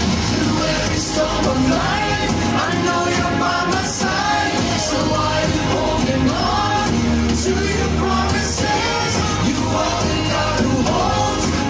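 Worship song playing: a singer's voice over pop-style backing music.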